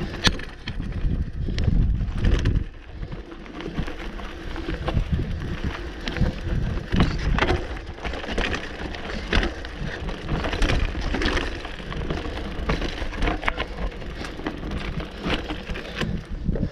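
Commencal Meta HT AM hardtail mountain bike riding down a rocky path: tyres crunching over rock and grit, with frequent sharp knocks and rattles from the bike as it bumps over stones, and a low rumble of wind on the microphone.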